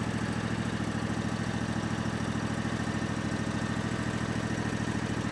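Zero-turn lawn mower engine running at a steady speed while the mower is driven.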